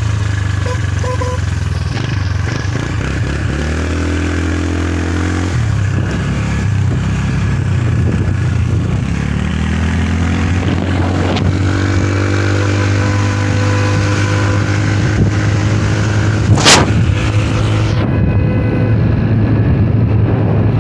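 Small motorbike engine running steadily while riding, with rumbling wind noise on the microphone; the engine pitch climbs twice as the bike speeds up. A single sharp crack sounds about two-thirds of the way through.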